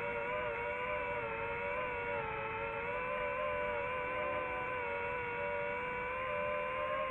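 Quadcopter drone's motors and propellers whining steadily, several held pitches wavering slightly up and down as the drone adjusts its hover.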